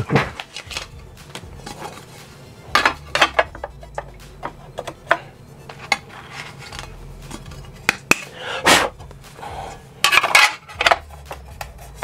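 Metal clinks and clatter as spiked metal foot plates, screws and hand tools are handled and knocked on a work surface, in several short bunches of sharp clicks.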